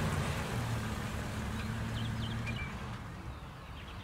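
Jeep Wrangler's engine running as it pulls in and slows to a stop, the hum fading and dropping off about three seconds in. A few short bird chirps come through in the middle.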